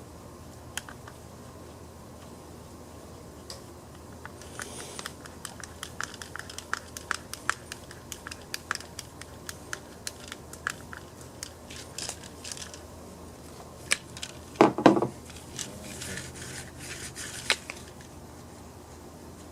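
Small plastic parts of a chainsaw recoil starter being handled and fitted by hand: a run of light clicks and ticks, then a few louder knocks about three-quarters through, followed by some rustling.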